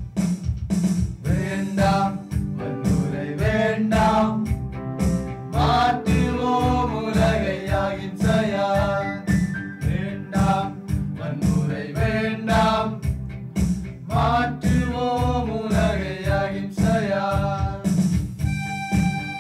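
A Tamil song with singing over a steady beat and accompaniment; near the end the voice stops and instruments carry on alone.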